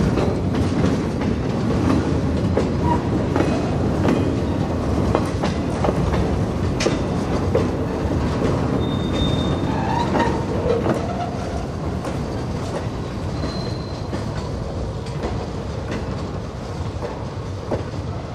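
Freight boxcars rolling slowly past, their wheels rumbling and clacking over the rail joints with repeated knocks. A brief high wheel squeal comes about nine seconds in and another about thirteen seconds in, and the rumble gets a little quieter in the second half.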